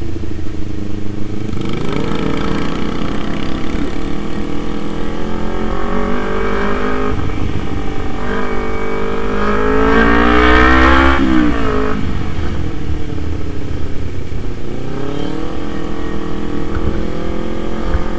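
Kawasaki Z250's parallel-twin engine under way, heard from the rider's seat, revving up through the gears several times. The longest pull climbs to its highest pitch about ten to eleven seconds in, then drops off sharply as the throttle closes, and the engine picks up again near the end.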